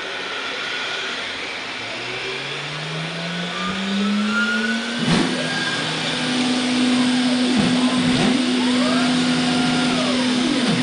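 CNC router spindle (5 HP Colombo) spinning up, its whine rising in pitch over several seconds and then holding steady at speed. From about halfway, the axis drive motors whine up and down in pitch as the gantry moves, after a sharp click about five seconds in.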